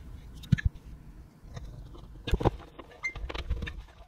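Hand-work handling noise on electrical wiring: scattered small clicks and knocks, the sharpest about half a second in and two more around two and a half seconds in.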